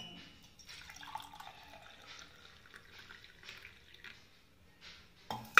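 Water poured from a stainless steel tumbler into a small steel cup, a faint trickle and splash. A single sharp clink near the end.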